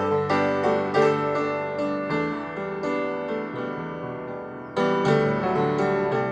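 Background piano music: gentle piano chords and notes struck in a slow, even pattern.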